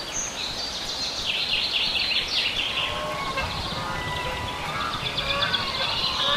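Small birds chirping and twittering, with a dense run of quick chirps about a second in and lighter chirping after.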